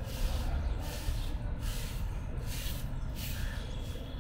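Busy outdoor street ambience: a steady low rumble, with a hiss that swells and fades about every two-thirds of a second.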